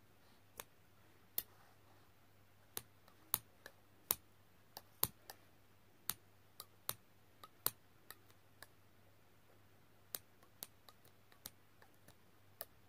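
Small scissors snipping repeatedly at twisted cord: a run of sharp, irregular clicks, about two a second, with a short pause a little after halfway.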